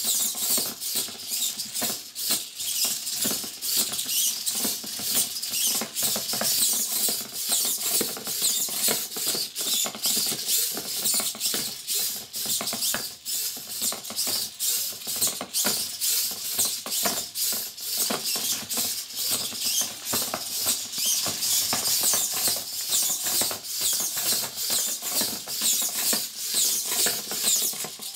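Small hobby servo motors driving a 3D-printed, finger-like crawling robot, its plastic parts clicking and scraping on a wooden floor as it crawls: a continuous, rapid, irregular clatter of small clicks.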